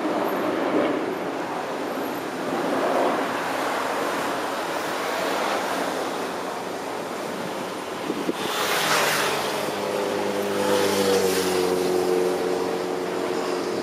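Engines and propellers of a formation of aerobatic propeller planes droning overhead under a steady rushing noise. About nine seconds in the sound swells and a steady engine note comes through, its pitch dipping slightly a couple of seconds later as the planes pass.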